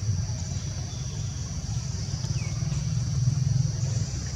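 Outdoor forest ambience: a steady high-pitched insect drone over a low rumble that swells a little past the middle, with two short falling chirps about two seconds in.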